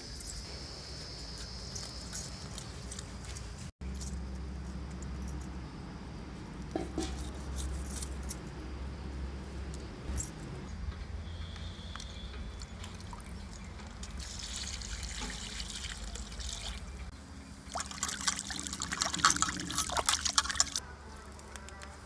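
Water scooped from a plastic bucket with a mug and poured, splashing, as small fish are washed in a metal bowl. The loudest, most broken splashing comes in a burst of about three seconds near the end.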